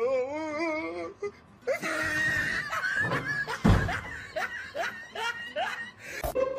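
A person's wavering voice, then a shriek, then a loud crash about three and a half seconds in as a wooden wardrobe door is wrenched loose and swings open askew, followed by laughter.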